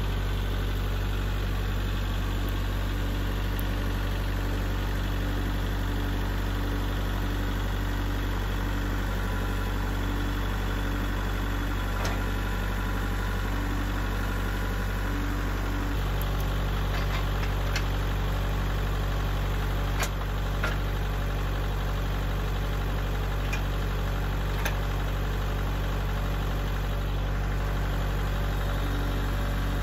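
Kubota L4701 tractor's diesel engine idling steadily, its note shifting slightly about halfway through. A few sharp metallic clicks and clanks come in the second half as the hay spike is latched onto the loader's skid-steer quick-attach.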